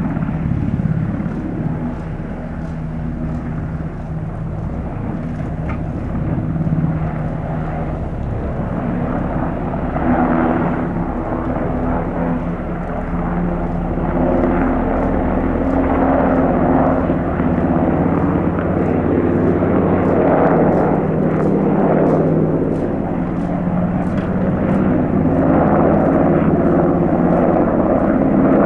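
Sikorsky UH-60M Black Hawk helicopter lifting off and departing: the steady whine of its twin turboshaft engines under the beat of its four-blade main rotor. It grows louder through the second half as the helicopter climbs away.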